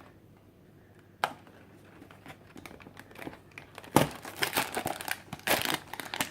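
A cardboard Lego box being opened and the plastic bags of Lego pieces inside handled, crinkling loudly from about four seconds in. There is one sharp snap a little after the first second.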